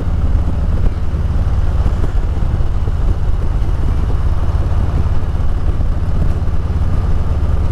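Harley-Davidson Road Glide's V-twin engine running at a steady cruise, heard from the rider's seat with wind on the microphone: a steady, unchanging low rumble.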